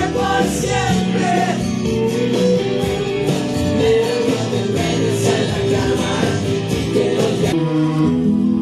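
Background music: a song with singing over guitar and a band. Near the end the fuller sound drops away, leaving mostly guitar.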